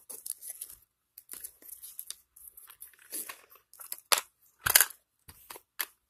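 Small cardboard box and its packaging being handled as items are packed back in: scattered rustles and light taps, with two sharper clacks a little after four seconds in, the second the loudest.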